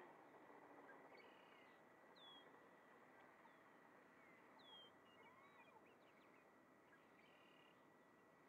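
Near silence: faint outdoor ambience with a few distant bird calls, short falling chirps twice in the first five seconds, over a thin steady high tone.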